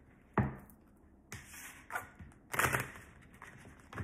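Tarot cards being handled and shuffled: a sharp knock of the deck about half a second in, then several bursts of cards riffling and rustling, the longest a little past halfway.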